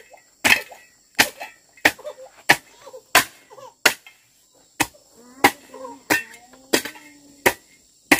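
A hand hoe chopping into a hard-packed dirt floor in a steady rhythm, about one and a half sharp strikes a second, loosening and spreading the soil.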